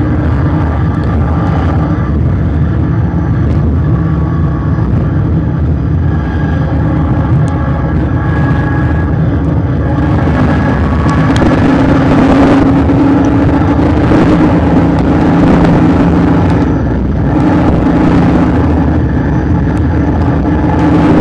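Car engine running at track speed under heavy wind and road noise on a bumper-mounted microphone, the engine note growing louder about halfway through and again near the end.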